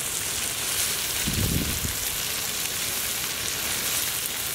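Diced bell peppers and sweet corn sizzling in butter in a large hot pan, a steady frying hiss. A brief low rumble about a second and a half in.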